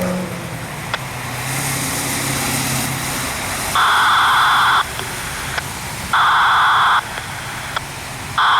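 A vehicle engine running for the first few seconds, then an Emergency Alert System SAME header: loud, one-second bursts of buzzing data tones a little over a second apart, two in full and a third starting at the end, signalling the start of a new alert.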